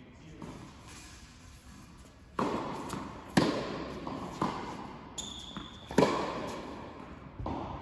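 Tennis ball being struck by rackets and bouncing on a hard indoor court during a rally, about five sharp pops that echo in the large hall, the loudest about three and a half and six seconds in. A brief high squeak sounds just after five seconds.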